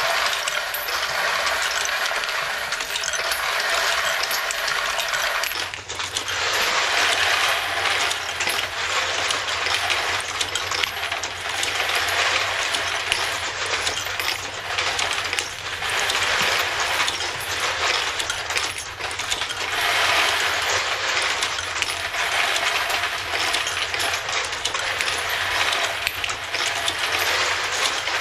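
Brass 9mm cartridge cases clattering and clinking continuously as the case-sorting machine feeds them and drops them through its chute into the bins, in swells every few seconds. A steady low machine hum joins about six seconds in.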